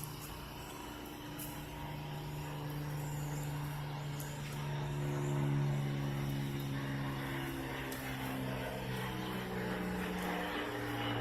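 A motor running with a steady hum of several tones, slowly growing louder, its pitch dropping about ten seconds in.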